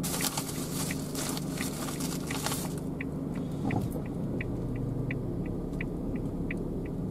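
A car's turn-signal indicator ticking steadily, about three ticks a second, over the low rumble of the car cabin. A crackly rustling noise runs through the first three seconds or so.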